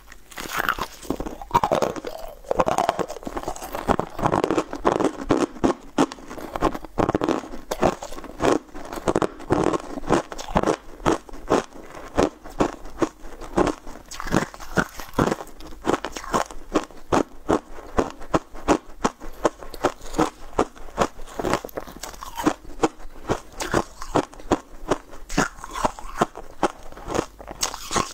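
Someone biting and chewing crisp blue swirl-shaped cookies close to the microphone: a long run of sharp, even crunches, several a second.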